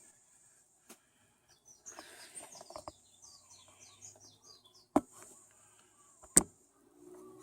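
Birds chirping in a quick run of short notes, with two sharp clicks about a second and a half apart, the loudest sounds here.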